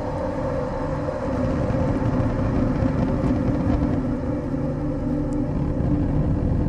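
Dark industrial ambient drone: a dense low rumble with steady held tones layered over it, swelling slightly about two seconds in.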